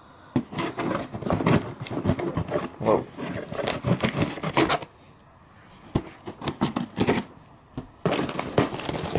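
Cardboard shipping box being handled and turned over: a run of scrapes, rustles and light knocks against its sides, pausing briefly about five seconds in and again near the end.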